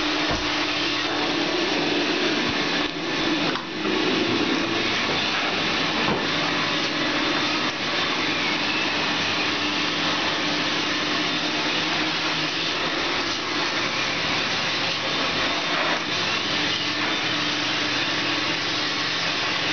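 Carpet-cleaning machine's vacuum running through a long hose and cleaning wand: a steady suction rush with a hum underneath. The sound dips briefly twice, about three and four seconds in.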